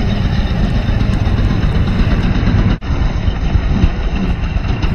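Go-kart engines running, a dense low drone with a brief break nearly three seconds in.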